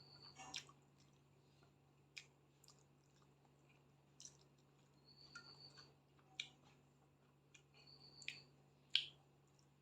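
Quiet eating sounds of a person chewing chicken and rice, with sharp wet mouth clicks every second or two, the loudest near the end. A faint steady low hum lies underneath.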